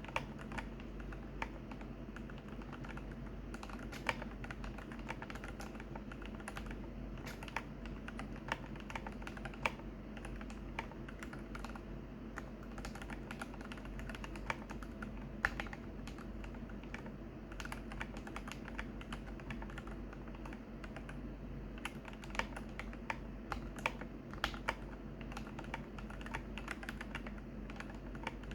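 Typing on a pre-built Glorious GMMK Pro mechanical keyboard (ANSI layout) with its stock switches and keycaps: a steady, irregular run of key clacks, with now and then a louder strike standing out.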